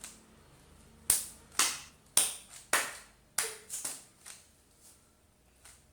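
Rubik's cube faces being turned quickly, a run of sharp plastic clacks about two a second that thin out after about four seconds.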